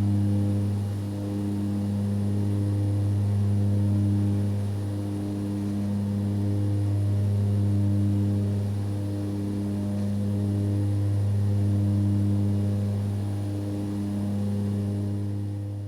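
Aircraft engine drone in steady cruise flight: a constant low hum with a slow, even pulsing beat. It fades out near the end.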